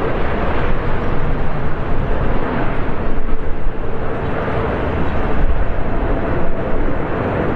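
Jet airliner noise heard from on board: a steady rush of engines and airflow, with a faint steady hum.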